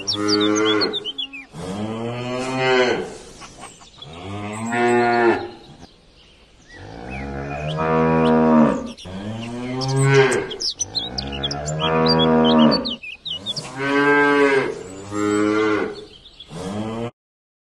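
Holstein-Friesian dairy cows mooing, about nine long, drawn-out moos one after another with short gaps, some rising and falling in pitch. The mooing stops abruptly near the end.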